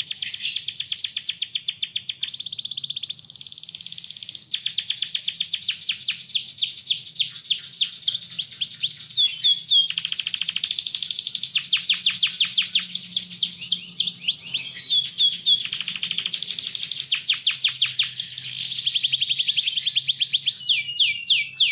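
Domestic canary singing a long unbroken song of fast rolling trills that change speed and pitch every few seconds, broken by a few runs of quick falling notes.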